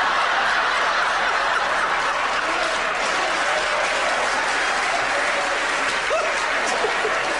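Live studio audience applauding steadily.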